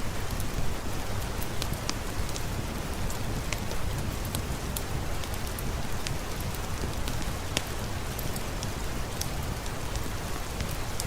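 Steady rainfall mixed with a crackling wood fire: a constant dense hiss with scattered sharp pops and snaps.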